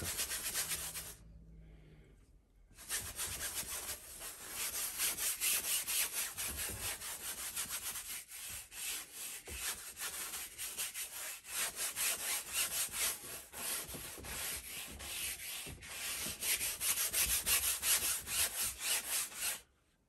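Stiff flat bristle brush scrubbing oil paint onto a canvas in quick back-and-forth strokes, a dry rubbing sound. The strokes start about three seconds in and run as a steady dense series until just before the end.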